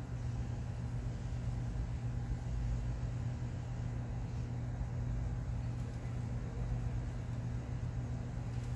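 Steady low mechanical hum with a constant pitch and a low rumble beneath it.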